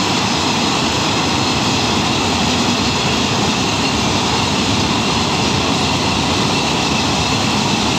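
Train running with a steady, unbroken rumble and hiss.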